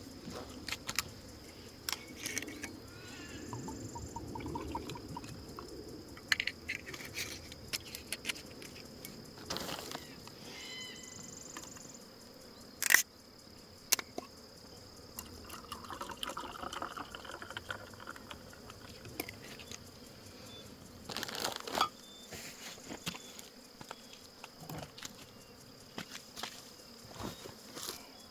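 Scattered clicks and knocks of camp gear being handled and set up, the sharpest knock about halfway through, over a steady high-pitched insect drone.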